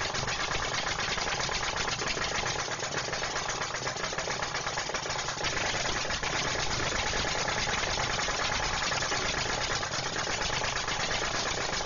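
Steady, fast mechanical rattling from a small machine, running without a break.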